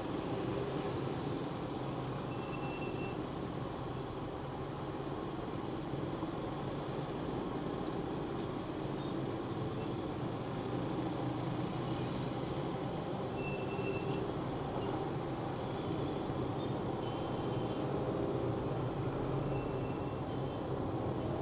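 Vehicle driving in traffic, heard inside the cabin: a steady engine hum and road noise. A few short, faint high tones sound now and then.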